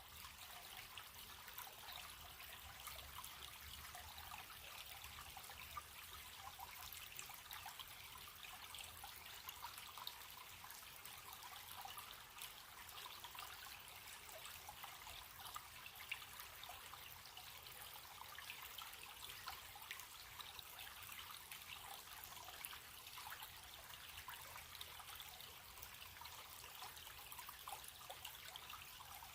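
A small stream trickling steadily: a constant hiss of running water with many small splashes.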